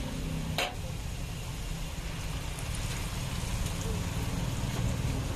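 Spiral-cut potatoes on skewers deep-frying in a tray of hot oil: a steady sizzle over a low rumble, with one sharp click about half a second in.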